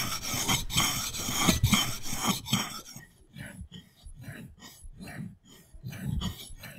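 Kitchen knife being sharpened on a whetstone: rapid back-and-forth rasping strokes of steel on stone, about three a second. About three seconds in, the strokes turn much fainter but keep their rhythm.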